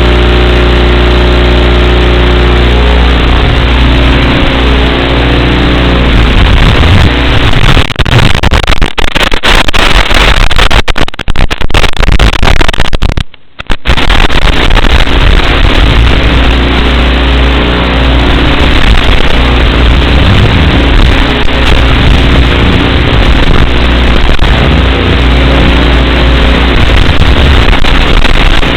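Loud steady static hiss with a low buzz, as an analog FPV video receiver gives on its audio channel. It crackles and cuts in and out from about 8 to 14 seconds in, dropping out almost completely for a moment just before 14 seconds, then carries on.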